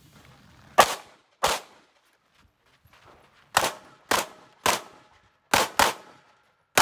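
Pistol shots during a practical shooting course of fire: two shots, a pause of about two seconds, then five more in quick succession and one more at the very end.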